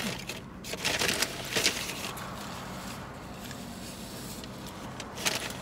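Paper takeout bag rustling in a few short bursts as hands reach into it, then a low steady hiss.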